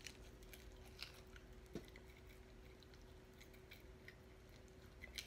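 Faint chewing of a person eating a sauced chicken wing: soft scattered mouth clicks, close to near silence.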